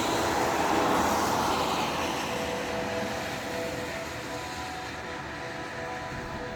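Unexplained droning sky noise heard from outdoors: several steady horn-like tones held together over a rushing noise that swells about a second in, then slowly fades while the tones carry on.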